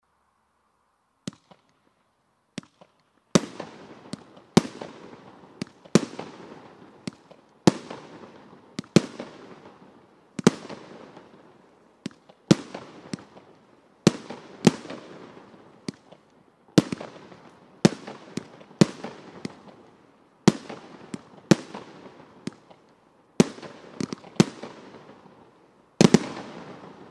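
Primed Pyrotechnics 'High Stakes' 19-shot consumer firework barrage firing: after two faint pops, shells go off one after another, a sharp bang about every second or so, each trailing off over about a second. It ends with a louder final cluster of bangs.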